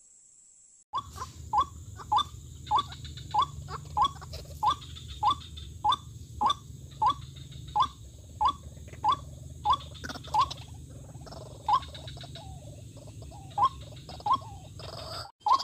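White-breasted waterhen (dahuk) calling: a short, rising note repeated about one and a half times a second, starting about a second in and stopping just before the end, over a steady low hum.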